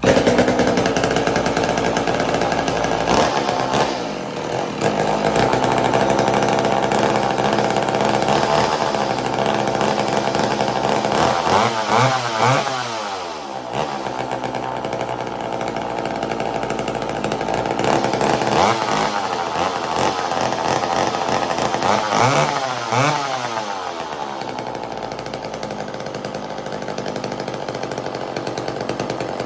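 McCulloch Mac 120 two-stroke chainsaw running, with its pitch sweeping up and back down several times as it is revved. It is not running right, which the owner puts down to a carburettor in need of a rebuild.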